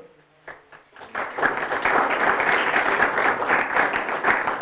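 Audience applauding: many hands clapping together, starting about a second in after a brief hush and keeping up steadily.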